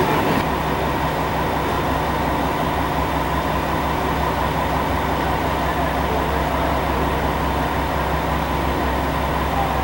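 Steady train noise at a station, with a faint steady tone.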